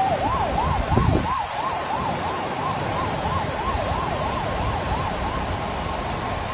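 A siren yelping, its pitch sweeping quickly up and down about three times a second, over a steady low rushing noise. A brief louder low rumble comes about a second in.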